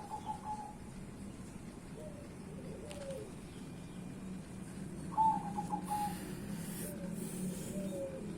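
Dove cooing: a repeating phrase of a few quick, higher clipped notes followed by lower, falling coos, heard twice. A soft hiss rises for a moment around six seconds in.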